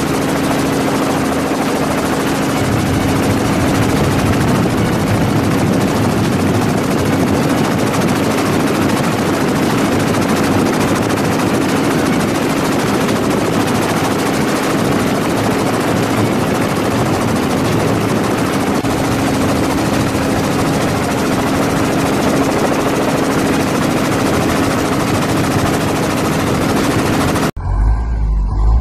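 Steady helicopter engine and rotor noise heard from aboard the aircraft, a dense roar with a constant hum underneath. Near the end it cuts off abruptly and a low vehicle engine rumble takes over.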